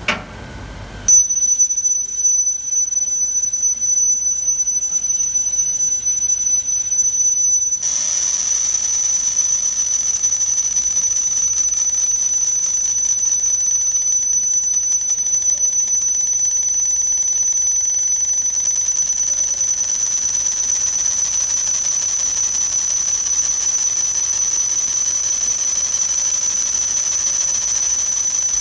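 Galvo laser machine running while it cuts and marks a wooden board: a steady high-pitched whine starts about a second in and grows louder about eight seconds in, then holds steady over a constant hiss.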